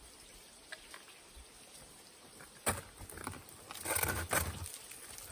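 Ice climbing on a frozen waterfall: a single sharp strike of a tool into ice about two and a half seconds in, then a louder flurry of knocks and scraping about a second later as ice tools and crampons bite into the ice.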